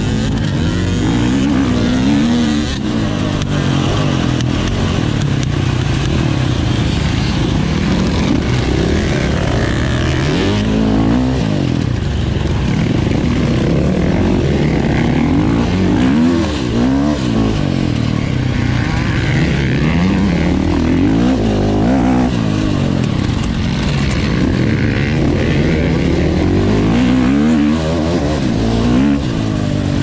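Enduro motorcycle engine running hard, its pitch repeatedly rising and falling as it revs up and drops back through the gears.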